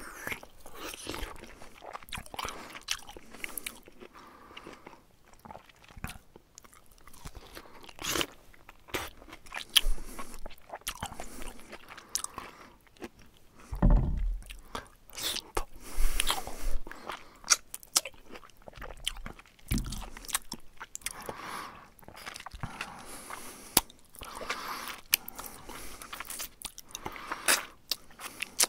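Syrian hamster chewing a mealworm close to the microphone: quick, sharp crunching clicks at irregular intervals, with a couple of low bumps around the middle.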